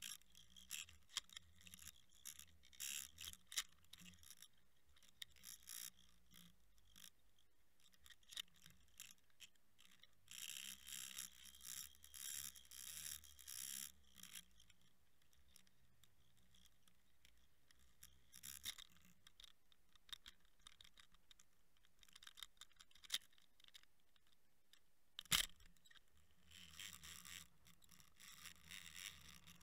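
Underwater camera rig on a fishing line, heard from inside its housing: faint rattling clicks and scraping with spells of rushing hiss as it is pulled through the water, and one sharper click late on.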